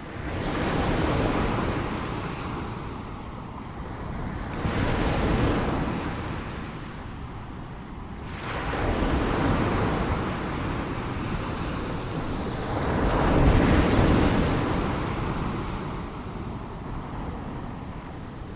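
Ocean waves breaking, the surf rising and falling in four surges about four seconds apart, the last the loudest.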